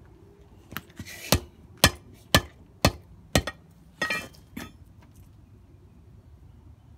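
A hand tool striking pieces of a broken plastic tail light on concrete paving slabs: six sharp knocks at a steady pace of about two a second, then a short clattering burst and one last knock about four seconds in.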